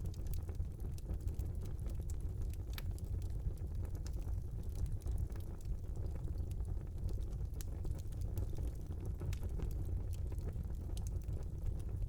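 Wood fire burning in a small fireplace: a steady low rumble of the flames with frequent small sharp crackles and pops scattered throughout.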